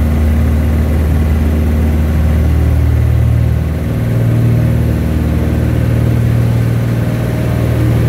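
Stinson light aircraft's piston engine and propeller running at takeoff power, heard from inside the cockpit during the takeoff roll on a grass strip. The engine note steps up in pitch about three seconds in and holds steady as the plane lifts off.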